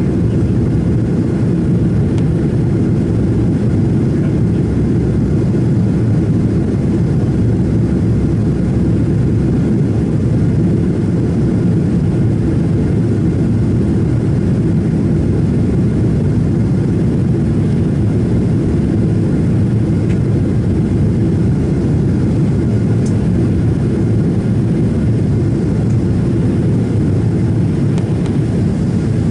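Steady cabin noise inside a Boeing 767-400ER on final approach with flaps extended: an even, low rumble of engines and rushing air heard through the fuselage.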